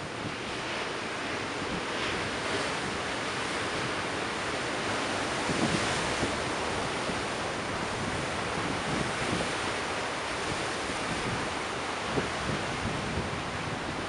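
Rough ocean surf breaking and washing ashore as a steady rush of white water, swelling slightly about midway. Now and then wind buffets the microphone.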